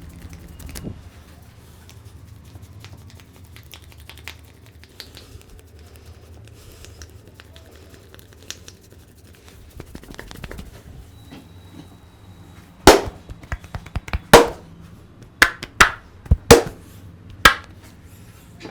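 A quiet low background with faint scattered ticks, then about seven loud, sharp knocks at irregular intervals in the last six seconds.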